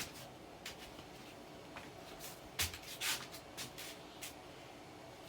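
Casablanca Panama ceiling fan coasting down after being switched off from high, a faint steady hum, with a series of light clicks and rustles of handling over it.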